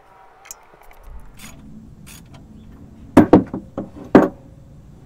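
Metal clinks and knocks as a housing is fitted onto the back of a manual transmission case and its bolts are started: a few light clicks, then a cluster of loud sharp knocks about three to four seconds in.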